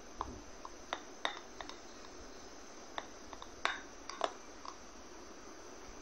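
Steel spoon stirring thick gram-flour batter in a ceramic bowl, clinking against the bowl about ten times at irregular intervals, loudest a little past the middle.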